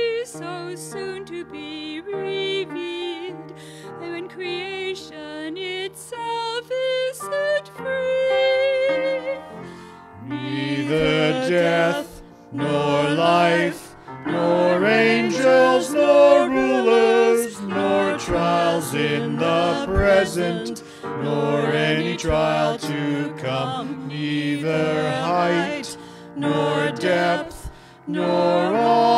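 A small group of voices singing a hymn in harmony with accompaniment. The voices come in about ten seconds in after an instrumental opening, and the phrases are separated by short breaks.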